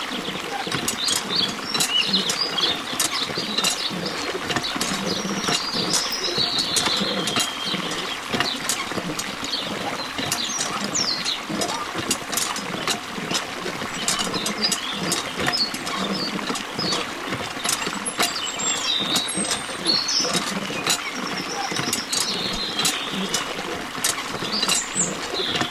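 A thin stream of water from a miniature hand-pump spout splashes steadily into a small, full water tank, with high chirps now and then over it.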